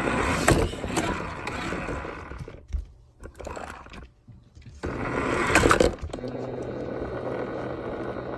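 Rough rumbling and scraping with knocks, in two stretches, as the phone strapped to a toy car is jostled and rubbed against it; after the second stretch it gives way to a steady low hum.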